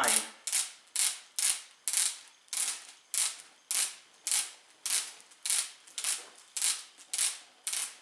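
Plastic crank-and-gear drive of a toy ornithopter being turned by hand, giving a sharp click about every half second.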